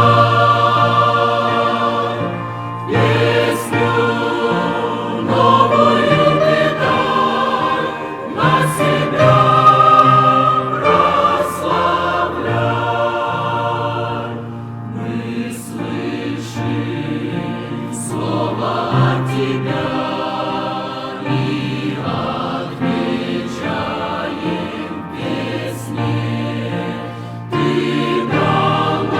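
A choir singing a hymn in slow, held chords over a low bass line.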